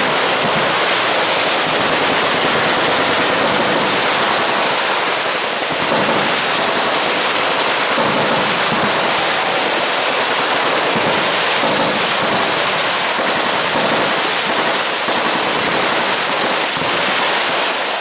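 Massed machine-gun fire from many guns shooting at once, a continuous rattle of overlapping bursts with no pause.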